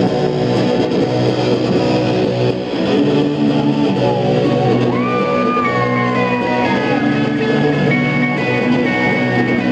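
Live rock band playing a loud, dense instrumental jam, electric guitars and drums, with a high note that glides up and back down about five seconds in.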